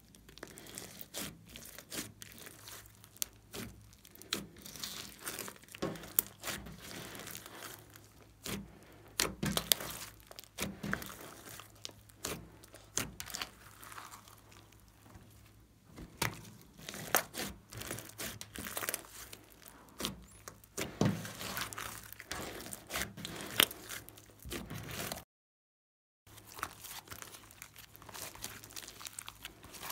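Glossy slime with small beads mixed in being squeezed, folded and stretched by hand: sticky squelching with irregular crackles and sharp clicking pops. There is a dropout of total silence for about a second past the middle.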